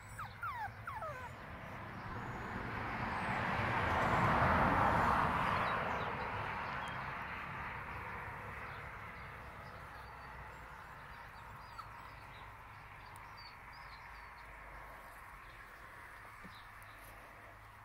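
A schnauzer puppy gives a few short, falling whimpers in the first second. Then a broad rushing noise swells to its loudest about four to five seconds in and slowly fades away.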